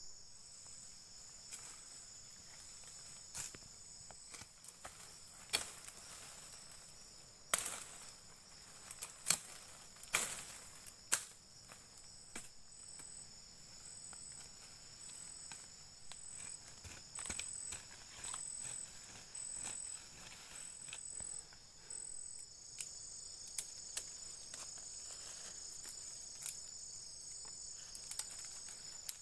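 Insects trilling steadily at a high pitch, one of them in an on-off pulsing call. Scattered sharp clicks and knocks sound among them.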